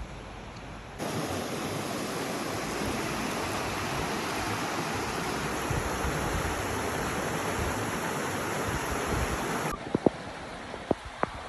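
Waterfall rushing, a steady loud noise of falling water that starts abruptly about a second in and cuts off suddenly near the end. After it, over faint wind, come a few sharp clicks.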